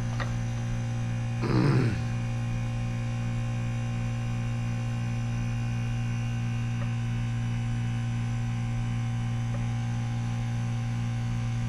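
Steady electrical hum of a WaterFurnace geothermal heat pump running in heat mode while it is charged with R-427A refrigerant. A short vocal sound breaks in about a second and a half in.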